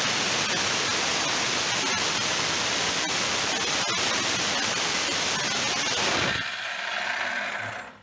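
Handheld electric circular saw running and cutting across small wooden boards, a loud steady noise; about six seconds in it stops cutting and its sound falls away.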